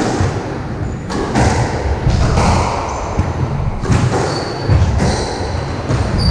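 Squash rally: the ball is cracked by rackets and smacks off the walls in a run of sharp knocks about a second apart. The knocks echo in the court, with brief high squeaks of court shoes on the wooden floor in the second half.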